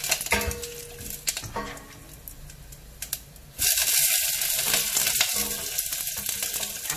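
Green chillies, curry leaves and whole spices frying in hot oil in a stainless-steel pot, stirred with a wooden spatula that knocks and scrapes against the pot. About three and a half seconds in, a loud sizzling hiss starts suddenly and keeps on.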